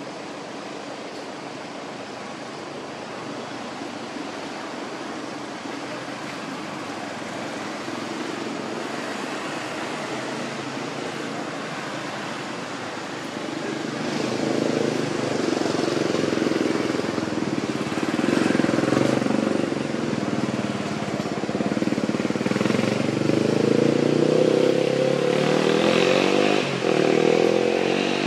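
A motor engine running, getting steadily louder and then clearly louder about halfway through, with its pitch wavering.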